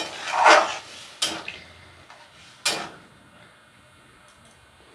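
Cooking sounds at a kadai: a short swelling hiss, then two sharp clinks of metal against the pan about a second and a half apart.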